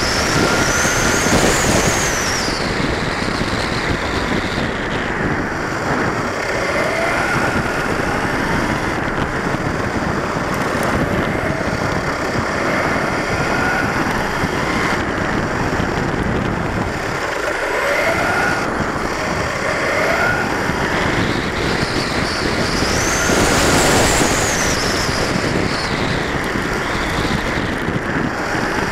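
Electric drive of a 1/10-scale RC short-course truck, heard from a camera mounted on the car: the motor and gears whine up and down as it accelerates and brakes through the corners, twice climbing to a high whine at full speed, over steady tyre noise on asphalt.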